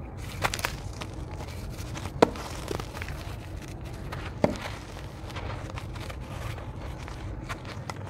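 Dry, gritty red dirt block crumbled and crushed between the fingers right by the microphone: a crunching crumble with a few sharp cracks as pieces snap off, the loudest just over two seconds in and again near four and a half seconds in.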